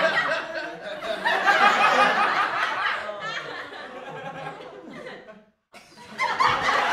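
Studio audience laughter, a sitcom laugh track, dying away. It cuts to silence about five and a half seconds in, and a new burst of crowd noise starts up just before the end.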